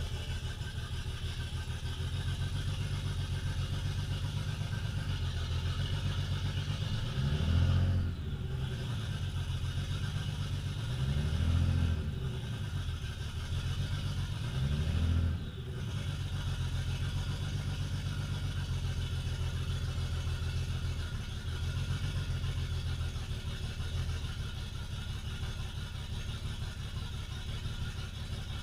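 BMW 335i's N54 twin-turbo inline-six, a freshly swapped replacement engine, idling on one of its first runs with the exhaust not hooked up, heard from inside the cabin. It is blipped three times, about four seconds apart, in the first half.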